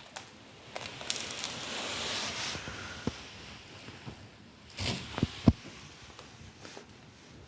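Handling noise from a used radiator fan assembly being moved about: a soft rustle, then a few light clicks and knocks.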